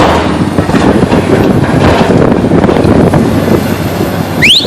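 Excavator running and working, with dense rattling and clanking over a steady engine hum, and a brief rising squeal near the end.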